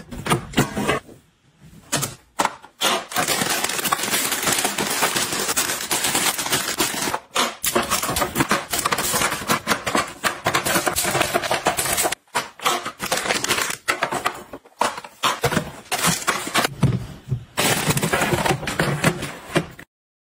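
Close-up clatter of stocking plastic storage: pots set into plastic divider racks and cardboard milk cartons packed into a plastic bin, a dense run of clicks, knocks and rustles broken by a few short gaps.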